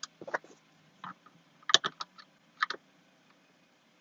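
Phillips screwdriver and hands working a screw out of a plastic steering column cover: a handful of sharp, separate clicks and knocks, the loudest a little under halfway through.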